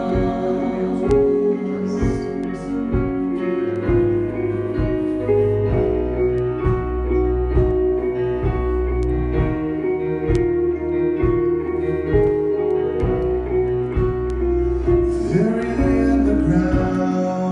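Instrumental break in a contemporary worship song: guitar over sustained chords and bass, with a steady beat.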